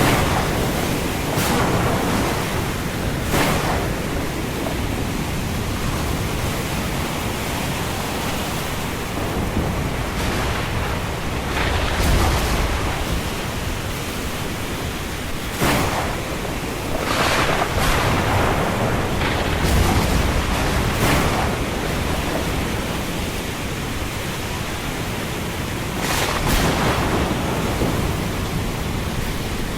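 Thunderstorm with a steady rush of wind, broken by about ten short, sudden cracks of thunder. Deeper rumbles of thunder come about twelve and twenty seconds in.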